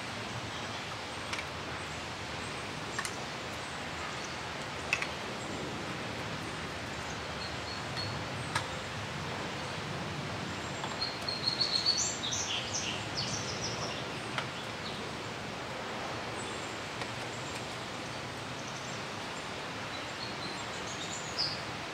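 Light clicks and knocks of PVC pipe pieces being pushed into plastic tee and elbow fittings, scattered every few seconds over a steady outdoor background hiss. A bird chirps, a quick run of high calls, about halfway through.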